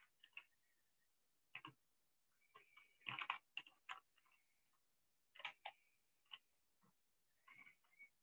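Faint, irregular computer keyboard and mouse clicks, some coming in quick clusters, against near silence.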